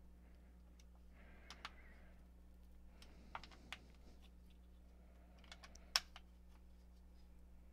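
Faint scattered clicks and creaks of a small Allen key being turned through a paintbrush handle, used as a makeshift lever to tighten screws into a subwoofer enclosure; the handle is creaking under the strain, on the point of breaking. The sharpest click comes about six seconds in.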